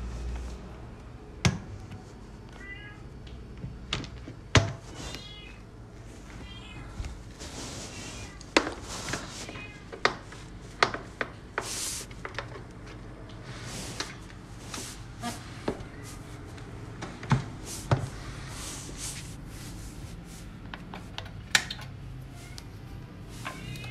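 Knocks and clunks of a rice cooker's inner pot and lid being handled and set in place, with sharp clicks throughout. A cat meows several times, mostly in the first ten seconds.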